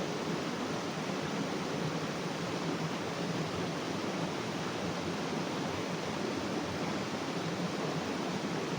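Steady rushing of a flowing small river.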